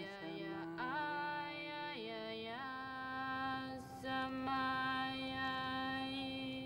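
A woman singing a traditional Inuit song. The voice slides between notes at first, then holds one long note for about four seconds before it fades.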